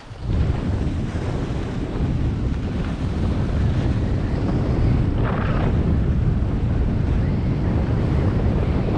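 Wind buffeting a GoPro's microphone as the skier carrying it runs down the piste at about 20 mph, with the skis hissing over the snow. A brief brighter scrape of the skis about five seconds in.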